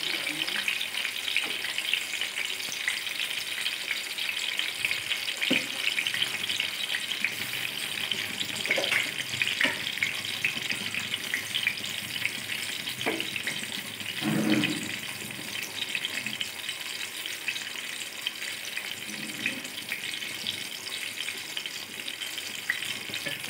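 Marinade-coated squid pieces shallow-frying in hot oil on a flat tawa, a steady sizzle and crackle throughout. A few short, sharper scrapes and knocks come as a metal spoon turns the pieces in the pan.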